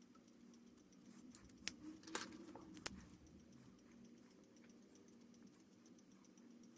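Faint sounds of drawing tools being used and handled on paper: a few light clicks and a short scratchy stroke about two seconds in, over a low steady hum.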